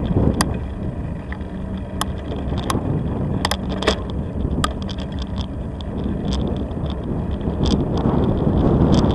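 Bicycle ride on an asphalt street: steady low rumble of wind on the microphone and tyres, with scattered sharp clicks and rattles. The rumble grows louder near the end.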